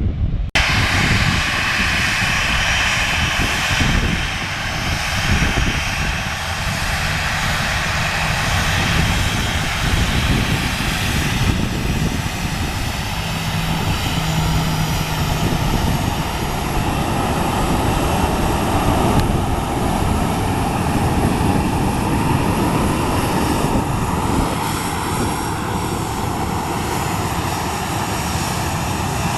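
Boeing 737-800 jet engines (CFM56) running loud and steady, a dense roar with a wavering whine over it.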